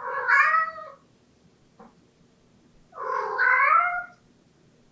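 A Scottish Fold–Himalayan cat meowing twice, two drawn-out plaintive calls about three seconds apart, the second a little longer. It is the cry she makes at a closed door, asking for it to be opened.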